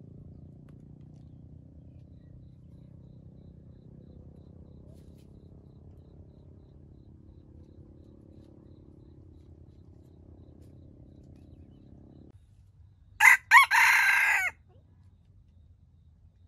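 Wild junglefowl rooster crowing once, about three-quarters of the way through: two short clipped notes and then a longer final note, the whole crow lasting about a second and a half. Before it there is only a faint low hum.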